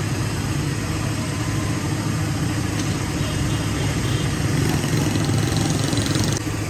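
An engine idling steadily, a low even hum that eases off slightly near the end.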